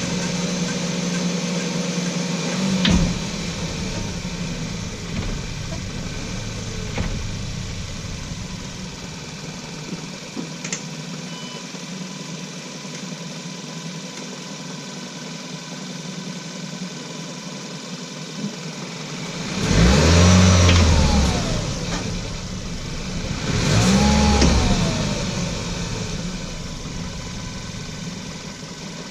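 Volkswagen Golf Mk6 running, with a sharp single clunk about three seconds in and a few fainter knocks later, the brake clunk that started after new pads and discs were fitted. Two louder swells with rising and falling pitch come near the end.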